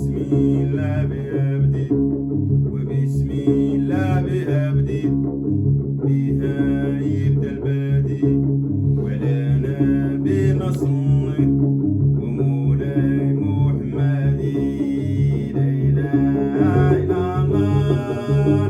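Music on a plucked string instrument over a steady low drone, with a voice singing.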